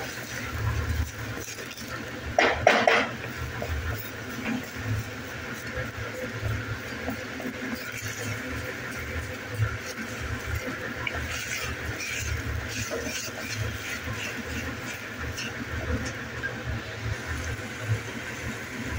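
Wooden spatula stirring raw rice grains in ghee in an aluminium pressure-cooker pan, the grains rustling and the spatula scraping against the metal, with a louder scrape about two and a half seconds in.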